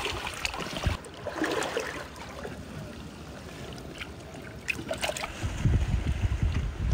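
Wind rumbling on the microphone over shallow water trickling among shore rocks, easing off in the middle and picking up again near the end, with a few light knocks and taps.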